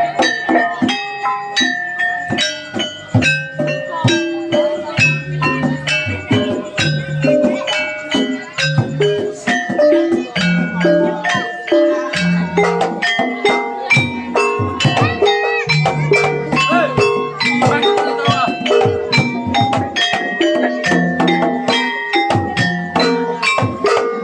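Gamelan music accompanying a kuda kepang dance: metal keyed instruments play a stepped melody over steady drum and gong strikes, with a voice heard around the middle.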